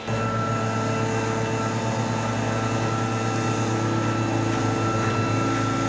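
Leaf blower's small engine running steadily at high speed, blowing volcanic ash off the pavement. It starts abruptly at the very beginning.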